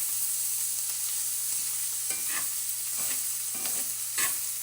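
Shredded cabbage sizzling in a frying pan, with a utensil stirring and scraping it a few times.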